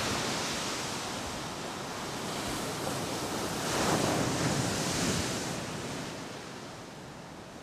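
Small waves washing onto a sandy beach, a steady wash of surf that swells about four seconds in and then fades.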